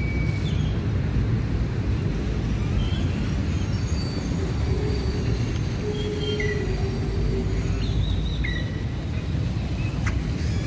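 Outdoor ambience: a steady low rumble with scattered short bird chirps, and a faint drawn-out tone in the middle.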